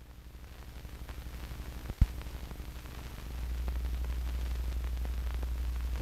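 Blank 16mm optical film soundtrack: a low hum and faint hiss with scattered faint ticks and one sharp pop about two seconds in. The hum grows louder a little after three seconds.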